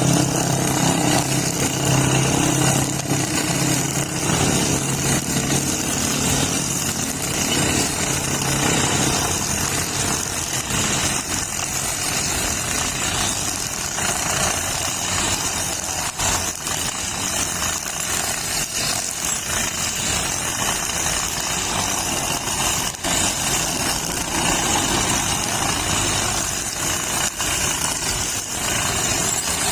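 Brush cutter running with a nylon string line, cutting grass. A steady engine note stands out for the first few seconds, then gives way to a dense, even whirring hiss.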